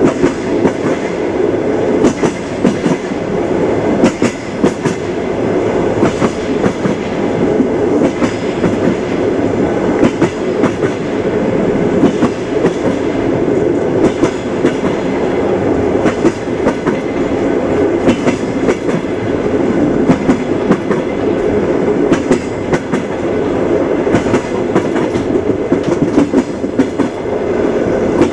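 Train wheels clattering over the rails: a steady rumble of a moving railway carriage with repeated sharp clicks from the wheels.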